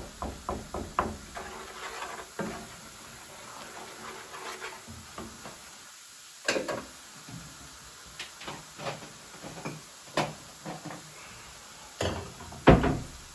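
Minced garlic frying in melted butter in a pan, a low sizzle with scattered pops and clicks. A wooden spatula knocks and scrapes against the pan: a quick run of knocks in the first second and more now and then, the loudest knock near the end.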